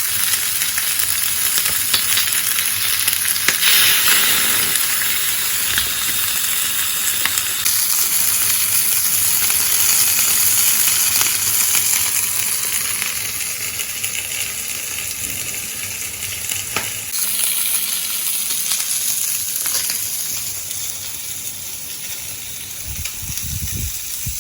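Food frying in a pan over a small alcohol stove: a steady sizzle full of small crackles, easing slightly in the second half.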